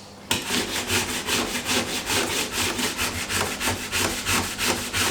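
Handsaw cutting through timber with rapid, even back-and-forth strokes, starting a moment in after a short pause.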